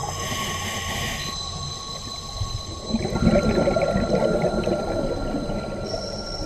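Underwater sound of scuba divers breathing through regulators: exhaled bubbles rumbling and gurgling, louder from about three seconds in, with several faint steady high-pitched tones running underneath.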